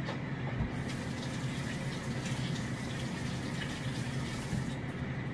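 Kitchen faucet running steadily into a sink.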